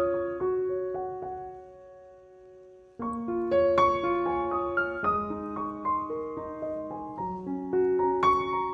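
Background piano music, a gentle melody of single notes. The notes die away about two seconds in, and the music starts up again a second later.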